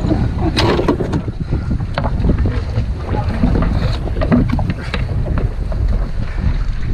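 Strong wind buffeting the microphone aboard a small sailing dinghy in a 22–28 knot breeze: a continuous low rumble, with scattered short sharp knocks.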